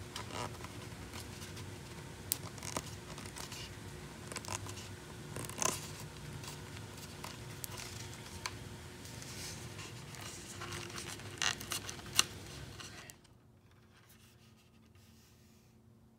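Hands working a glued upholstery covering over the edge of a door trim rail: soft rustling and scraping with a few sharp clicks, over a faint steady hum. Near silence after about thirteen seconds.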